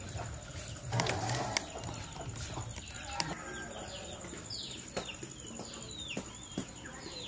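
Small birds chirping outdoors in a string of short, quickly falling notes over the second half, with a few sharp clicks scattered through and a thin, steady high whine behind.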